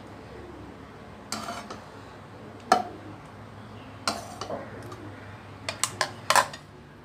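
Steel spoon and dish clinking against a non-stick pan as rasgullas are scooped out of the syrup: a scatter of separate clinks, the loudest about three seconds in and several close together near the end.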